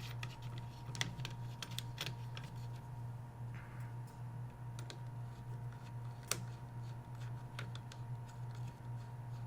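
Scattered light clicks and ticks, one or two a second, of a 3 mm Allen key working a bolt snug into the back of a rifle stock, with one louder click about six seconds in. A steady low hum runs underneath.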